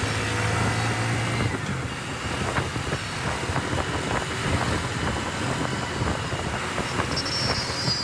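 Ride in a motor tricycle (keke napep) through town traffic: a steady low engine hum drops away about a second and a half in, leaving road noise with many small knocks and rattles. A faint high tone comes in near the end.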